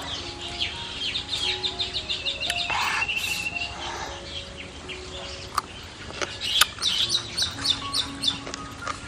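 A bird singing two runs of rapid, short, descending chirps, the first with a held whistle at its end, over soft background music with sustained notes.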